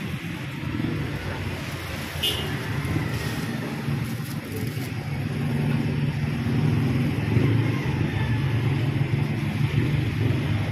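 Street traffic noise, with a motor vehicle's engine running close by and getting louder about halfway through.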